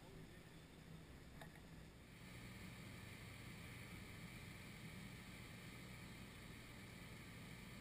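Near silence: faint steady outdoor background noise with a low hum, a little louder from about two seconds in.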